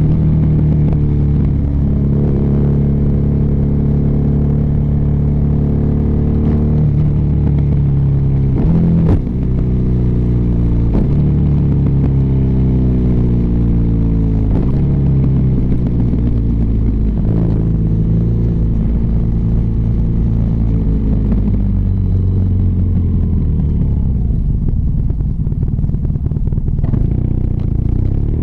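BMW R nineT's air/oil-cooled boxer twin exhaust note heard from the rider's seat while under way. The engine pitch climbs and drops again and again as the bike is worked through the gears. Over the last few seconds it winds down as the bike slows.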